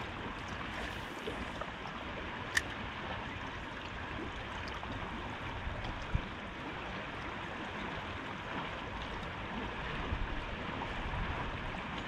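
River current flowing steadily, with a single sharp click about two and a half seconds in.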